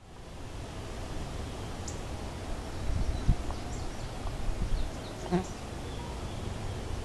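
Open-field ambience: a steady hiss with a low rumble, a faint insect buzz, and scattered short high chirps. A thump about three seconds in.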